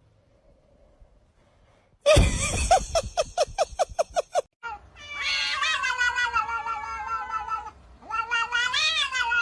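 Cat yowling: two long, drawn-out, wavering calls from about five seconds in. They come after a sudden loud burst of rapid pulsing that starts about two seconds in.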